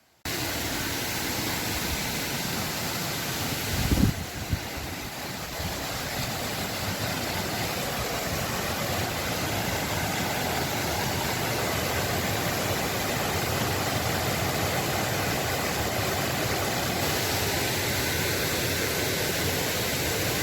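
Fast-flowing river water rushing steadily over a strong current, with a brief low thump about four seconds in.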